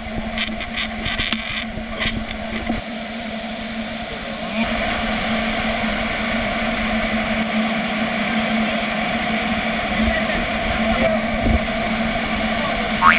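Rushing river rapids: a steady roar of fast-flowing water, with a few short knocks in the first couple of seconds. It grows a little louder about four and a half seconds in.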